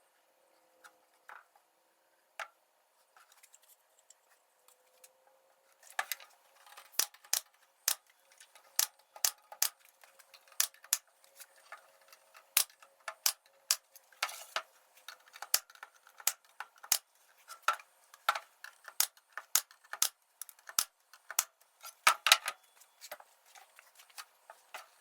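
Small pneumatic finish nailer firing nails into cedar boards: a long, irregular run of sharp clacks, about one or two a second, starting about a quarter of the way in, with one longer hissing burst near the middle.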